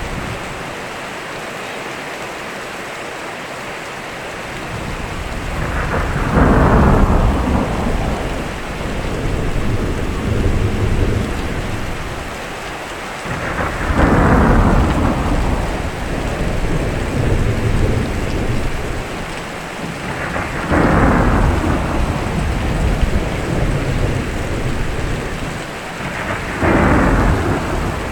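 Steady heavy rain with four rolls of thunder, evenly spaced about seven seconds apart. Each opens with a sharp crack that sweeps downward and trails off into a low rumble.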